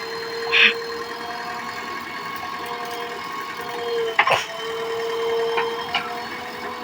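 JCB backhoe loader running with a steady whine, with two sharp knocks, about half a second in and about four seconds in.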